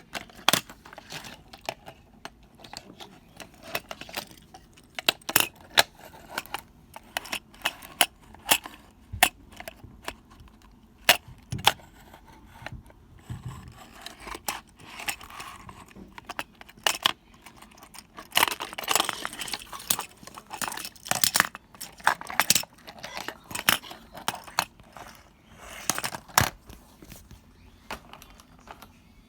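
Small plastic toy parts clicking and clattering as they are handled, with rustling and crinkling of the packaging in between.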